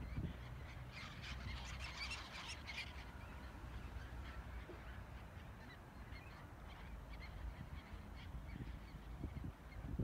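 A flock of birds calling as it flies over open water: a dense chatter of many overlapping high calls for the first few seconds, thinning to scattered fainter calls, over a low steady rumble.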